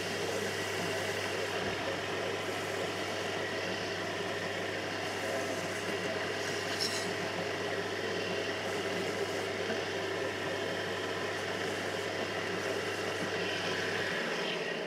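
Linisher (belt sander) running steadily while a workpiece's corners and edges are rounded against the belt. Its low hum stops abruptly near the end.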